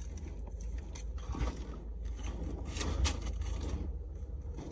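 Rustling and scraping of small objects being handled, with a few sharper clicks, the loudest about three seconds in, over a steady low hum.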